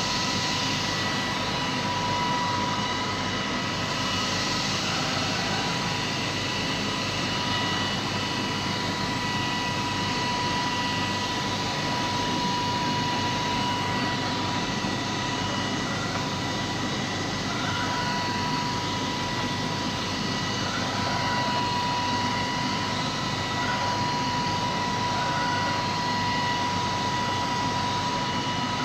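Arçelik robot vacuum cleaner running: a steady whirring rush of air with a thin, steady high-pitched whine.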